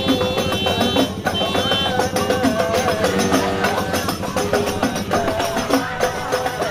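Music with a steady percussive beat and a melody over it.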